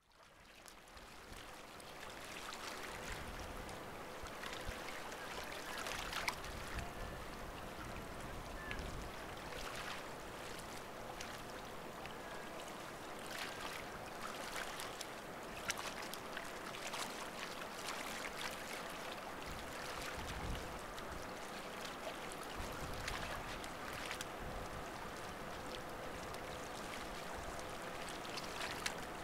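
Water lapping and splashing against shoreline rocks, with scattered small splashes over a faint steady hum. It fades in over the first couple of seconds.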